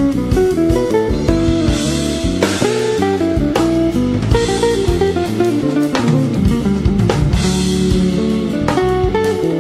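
Background music with guitar and drums.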